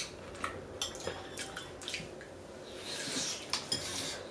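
Chopsticks clicking lightly against ceramic bowls while eating, in scattered small taps, with a soft hiss of eating noise near the end.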